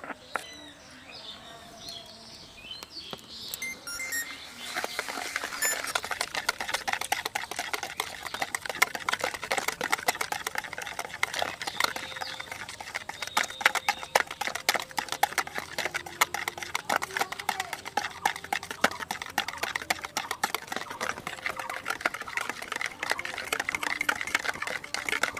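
Wire balloon whisk beating eggs and sugar in a plastic bowl for a sponge cake batter: a fast, steady run of clicks and swishes that starts about four seconds in.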